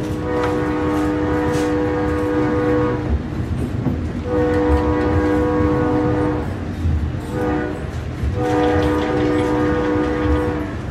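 Train horn sounding a chord of two main notes in four blasts, long, long, short, long, over the steady rumble of the train running at speed.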